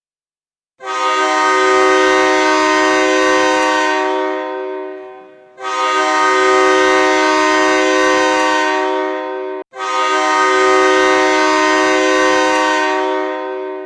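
Hockey goal horn: a loud multi-tone air horn sounding one steady chord in three long blasts of about four seconds each, the first starting about a second in and the last fading out near the end.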